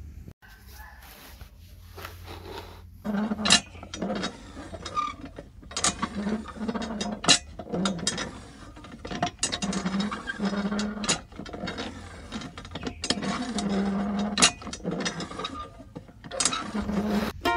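Irregular sharp clicks and knocks with a rough scraping in between, starting about three seconds in: small hand-crafting work on materials.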